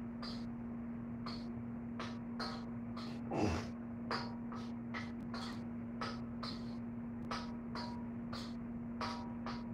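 Light metallic clinks of kitchen utensils at the counter, about two or three a second, over a steady low hum, with one louder short sound falling in pitch about three and a half seconds in.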